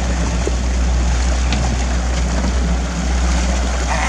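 Mercury outboard motor running steadily at low speed, a constant low hum, with water rushing and splashing along the hull.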